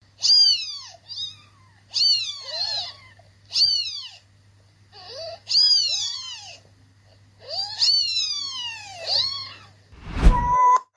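A cat meowing over and over: about seven high meows, each falling in pitch, some coming in quick pairs. Near the end there is a short loud burst of noise with a deep thump, then a brief steady tone.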